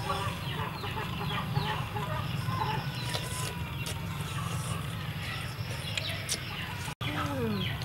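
Chickens clucking in short downward-sliding calls over a low steady hum, while greens and noodles are slurped and chewed close by.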